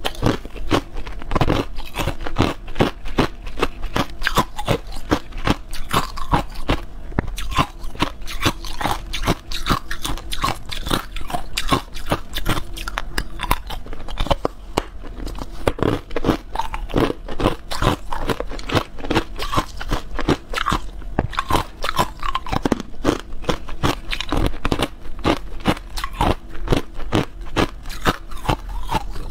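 Clear ice cubes being bitten and chewed, a fast, continuous run of sharp crunches, picked up close by a clip-on microphone at the throat.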